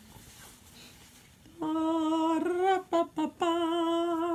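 A woman humming two held notes at about the same pitch, each lasting over a second, with a short break between. The first second and a half is quiet.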